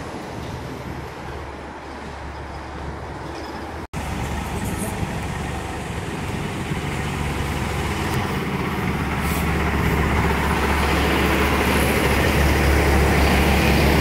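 Semi truck's diesel engine and tyres growing steadily louder as the tractor-trailer approaches and passes close by, a low steady engine hum over road noise. Before that, about four seconds of steady street traffic noise, with a sudden break between the two.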